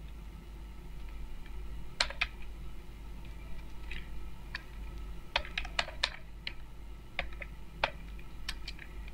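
Typing on a computer keyboard: irregular keystrokes starting about two seconds in, some single and some in quick runs of several clicks.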